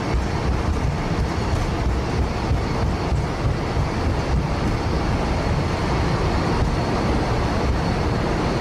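Cockpit noise of a Boeing 767-200 on its takeoff roll, accelerating past 80 knots toward rotation: a steady low rumble of the engines at takeoff thrust, the wheels on the runway and the rushing air.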